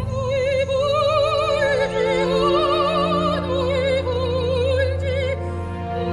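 Background music: operatic singing in a high register, long held notes with wide vibrato over a sustained low accompaniment.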